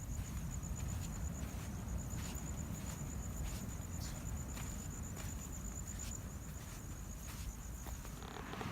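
Footsteps crunching in sand, about two steps a second, over the low steady rumble of ocean surf. A thin high-pitched trill runs along with them and stops about six seconds in, and a broader rushing hiss rises near the end.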